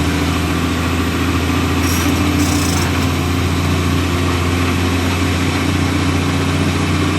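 Vehicle engine running with a steady low drone, and two brief hissing bursts about two seconds in.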